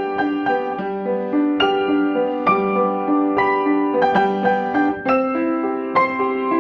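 Background music: a gentle piano melody, each note struck and left to ring.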